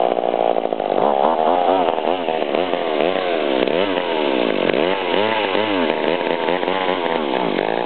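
McCulloch Eager Beaver two-stroke chainsaw running after being pull-started, its engine speed rising and falling over and over. It runs but won't stay running.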